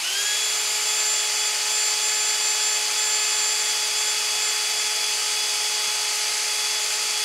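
Hilti SFE 2-A12 cordless drill driver running with no load in second (high) speed. It spins up quickly at the start, then holds a steady motor whine of several even pitches over a hiss.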